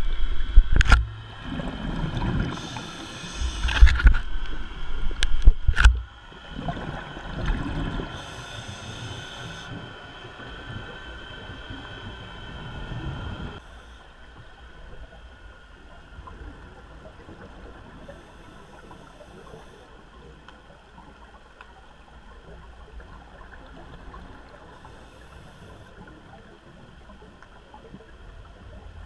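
Underwater recording: several heavy knocks and thumps in the first few seconds, then a steady vessel engine and propeller hum with whining tones that drops away about halfway through, leaving faint water noise.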